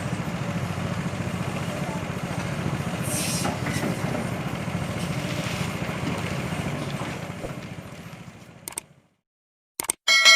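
Sumitomo SH350 excavator's diesel engine running steadily, fading away about eight seconds in. Near the end come a couple of sharp clicks and the start of a ringing metallic clang.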